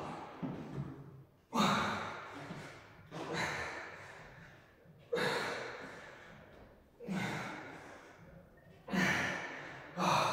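A man breathing out hard with each rep of bent-over dumbbell rows. A sharp exhale comes about every two seconds, each one fading away before the next.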